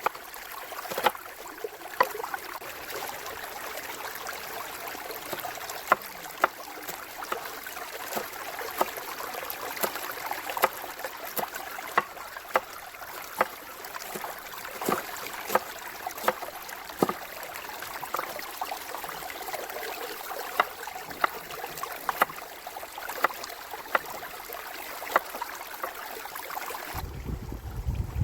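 Steady rush of flowing river water, with irregular sharp crackles and pops scattered through it. Near the end the rushing cuts off and a low rumble takes over.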